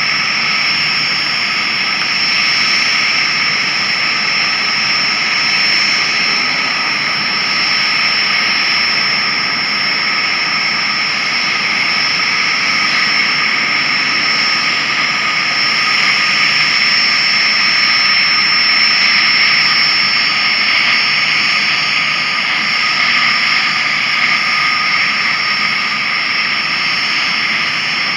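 Cessna 510 Citation Mustang's Pratt & Whitney PW615F turbofans running steadily at ground idle after start-up: a high whine of several steady tones over a jet hiss, swelling slightly midway.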